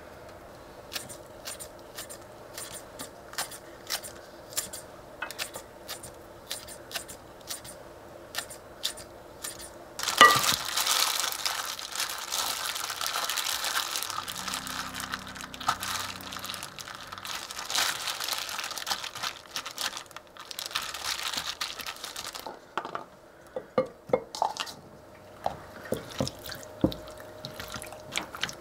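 Raw chicken being mixed by hand with red pepper paste and sauce in a bowl: a long run of wet squelching and plastic-glove crinkling from about ten seconds in until about twenty-two seconds. Scattered soft clicks and drips come before it, and light clicks of chopsticks against the bowl come after it.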